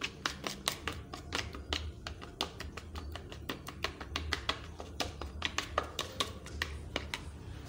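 A spoon clicking and scraping against a plastic bowl while stirring a groundnut-and-water paste: many quick, irregular clicks, several a second.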